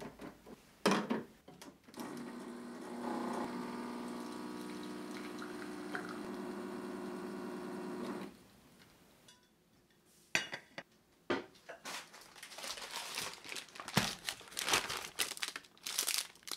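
Planit espresso machine's pump humming steadily for about six seconds as a shot is pulled, after a couple of clicks as the portafilter is locked in. After a short pause, a paper bag crinkles near the end.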